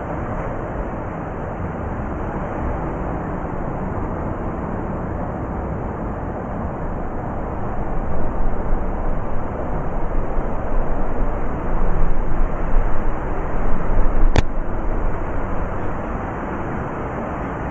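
Blizzard wind blowing in a steady deep rush, swelling into stronger gusts through the middle. A single sharp click is heard near the end.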